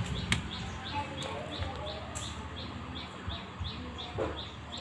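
A small bird chirps over and over, short high chirps at about three or four a second. A sharp click about a third of a second in and a few soft knocks come from handling the metal set-top box.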